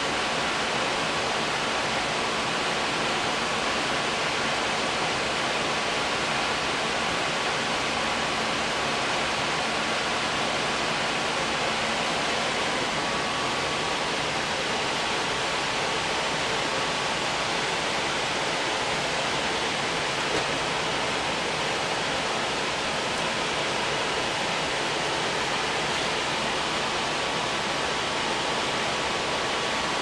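Furnace blower running, a steady loud rush of air with a faint steady whine, from the open cabinet while the furnace runs for its temperature-rise check.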